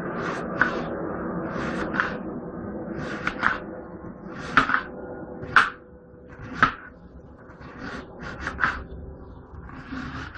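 Kitchen knife slicing an onion into rings on a cutting board: a crisp cut and a knock of the blade on the board about once a second, sometimes two in quick succession.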